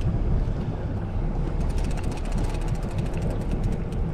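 Wind buffeting the microphone aboard a fishing boat on the lake: a rough, uneven low rumble.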